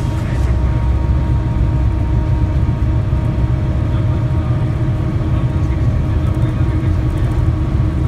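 Steady low road and engine rumble of a moving vehicle, heard from inside the cabin while it drives along a highway.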